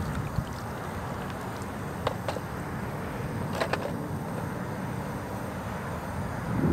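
Steady low rumble of wind on the microphone with water lapping at the surface, and a few light clicks about two seconds and three and a half seconds in. No motor is heard running.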